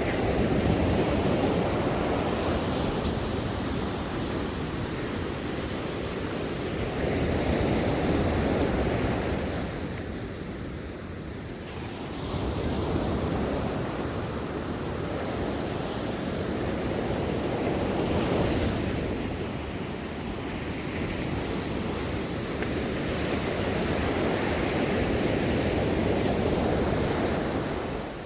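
Ocean waves breaking and washing on a shore, the surf swelling and falling away in slow surges every few seconds.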